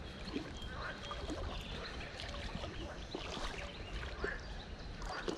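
Shallow river water splashing and trickling around a hooked chub as it is played on the line, with many small ticks and a low rumble underneath.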